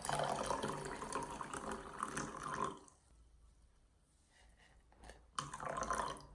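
Water running from a tap into a sink in two spells: about three seconds at first, then a second short run near the end, each starting and stopping abruptly.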